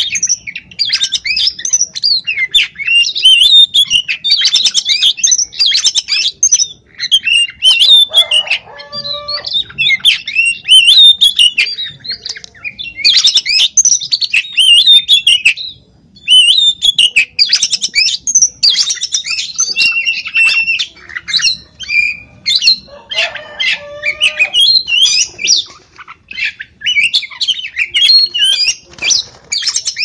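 Oriental magpie-robin (kacer) singing a loud, continuous song of fast, varied whistles and chattering phrases, with a short pause about halfway through.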